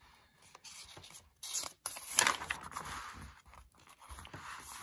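Paperback book page being turned and pressed flat by hand: papery rustling and crinkling in short irregular stretches, loudest about two seconds in.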